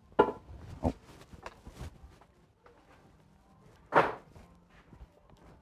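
A few scattered knocks and footsteps, with one louder thud about four seconds in.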